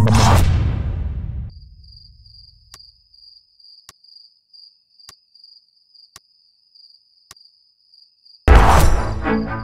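Cricket chirring steadily in a night-time hush, with a faint regular click a little slower than once a second. Loud film music fades out at the start, and a sudden loud hit breaks in near the end.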